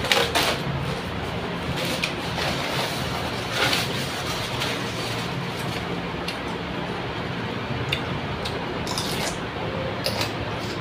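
A person eating at a table: a few short clicks and knocks from handling food and a plate, with chewing, over a steady background hum.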